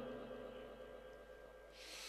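The echoing tail of a Quran reciter's long, wavering held note dies away over the loudspeakers to near silence. A faint breathy hiss rises near the end.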